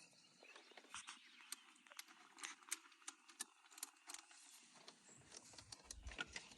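Near silence with faint, scattered small clicks and ticks of a hand tool and metal parts being worked at the steering wheel's airbag bolts.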